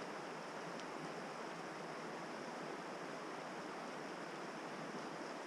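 River water rushing, a steady even rush with no change.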